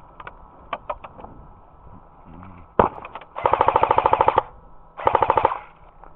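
Airsoft rifle firing: a few faint single shots, then one sharp shot, a rapid full-auto burst of about a second, and a shorter burst about half a second later.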